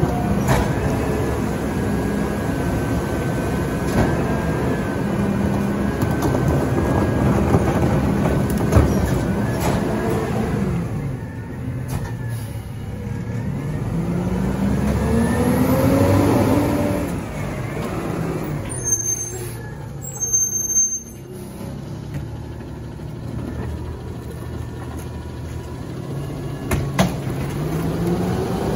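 Diesel engine of an Autocar ACX rear-loader garbage truck with a McNeilus body, running and revving up and down as the hydraulic packer cycles. Short air-brake hisses come a little past the middle.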